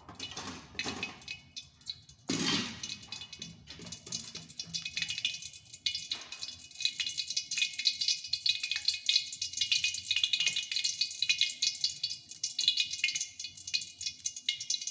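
Cooking oil sizzling and crackling in a frying pan on the stove, a dense spitting that starts suddenly about two seconds in and gets busier.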